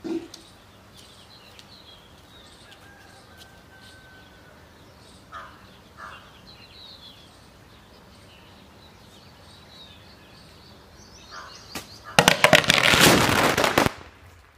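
Bird chirps over a quiet background, with a short knock at the start; about twelve seconds in, a 2000-shot string of bijli firecrackers packed inside a 20-litre plastic water bottle goes off in a dense, rapid crackle of bangs for about two seconds, then stops suddenly.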